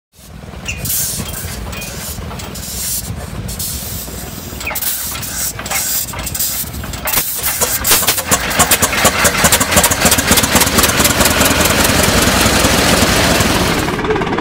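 Vintage Holt crawler tractor's big petrol engine being started: irregular hissing and knocks at first, then about halfway it catches and runs with loud, fast, evenly spaced firing beats.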